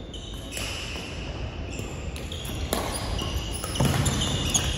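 Badminton doubles rally on a wooden court floor: sharp racket hits on the shuttlecock, short squeaks of shoes on the floor, and thudding footfalls that grow heavier near the end.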